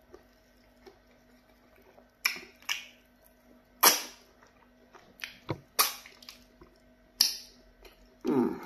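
Close-up wet mouth sounds of eating fufu and okra soup by hand: a series of sharp lip smacks and sucks on the fingers, about eight in all, the loudest about four seconds in. A lower, longer mouth sound follows near the end.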